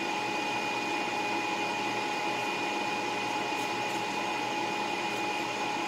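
A small motor or fan running steadily, a constant whir with a thin whine held at one pitch.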